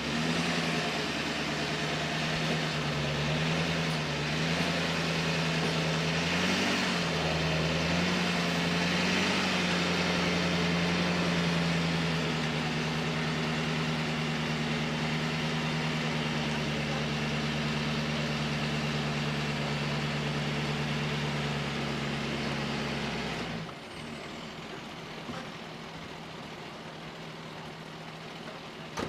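Tow truck's engine and hydraulics running steadily under load as its boom hoists a pickup truck out of the river, the pitch wavering briefly a few times in the first ten seconds. The drone stops suddenly about 23 seconds in, leaving a much quieter background.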